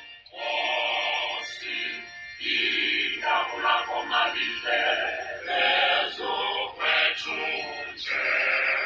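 Voices singing a hymn, in phrases with short breaks.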